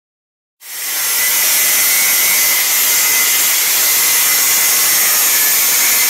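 Metabo WEPBA 17-125 Quick angle grinder (1700 W, 11,000 rpm) with a 125 mm Cobra Tools Natrix segmented diamond blade cutting through an 8 mm clinker facade tile: a steady, loud hissing grind with a faint whine, starting suddenly about half a second in.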